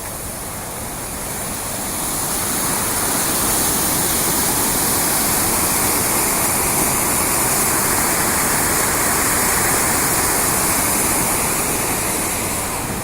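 Steady rush of water pouring through river rapids, swelling about two seconds in and easing off near the end.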